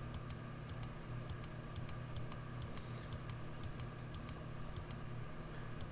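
Computer mouse clicking repeatedly, about two or three clicks a second, some in quick pairs, over a low steady hum.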